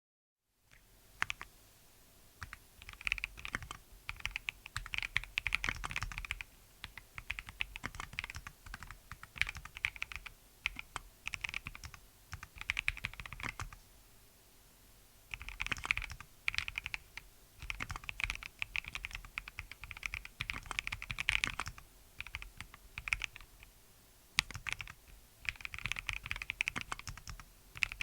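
Typing on a Mode Designs Envoy mechanical keyboard with Melgeek Kailh Custom Plastic switches and Drop MT3 Jasmine keycaps: quick runs of key clacks with short pauses between them.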